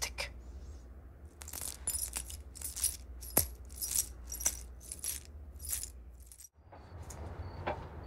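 Light metallic jingling in a string of about ten short strokes, roughly two a second, over a low steady hum. The hum cuts off suddenly about six and a half seconds in.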